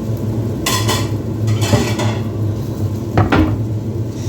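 Kitchen utensils and cookware clattering: three short clanks of metal or crockery, over a steady low hum.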